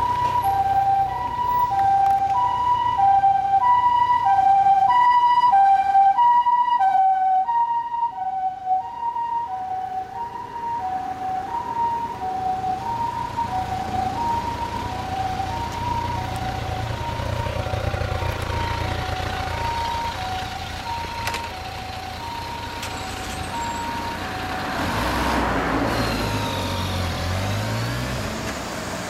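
Ambulance two-tone hi-lo siren alternating about once a second, its pitch dipping slightly as it passes and fading out about 24 seconds in. Under it a steady low engine rumble, with the Kawasaki Ninja 1000's inline-four revving up and back down near the end as the bike moves off.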